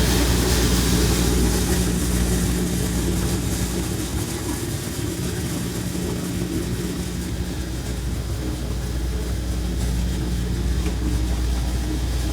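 Steady machine drone: a low, even hum with a few fixed tones and a hiss over it, unchanging throughout.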